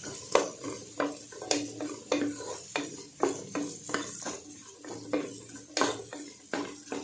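Wooden spatula stirring chopped onions in hot oil in a metal pot, scraping and knocking against the pot about twice a second, with the oil sizzling underneath.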